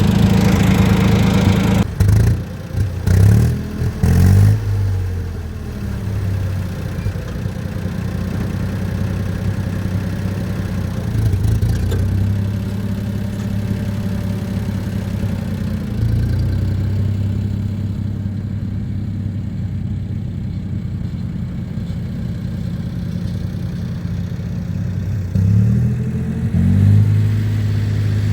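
Ford 2000 tractor engine running just after a jump start on a weak battery. It runs steadily, with its pitch swinging up and down a couple of seconds in and again near the end.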